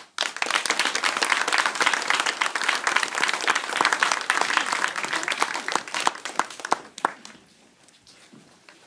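Audience applauding after the music stops, with dense clapping that thins out and stops about seven seconds in.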